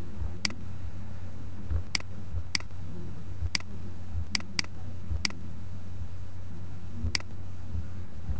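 About eight short, sharp clicks at irregular intervals from a computer mouse and keyboard in use, over a steady low hum.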